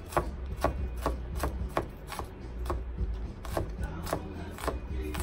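Chef's knife chopping yellow onion on a plastic cutting mat over a wooden board: a dozen or so sharp knocks of the blade against the board, about two a second and unevenly spaced.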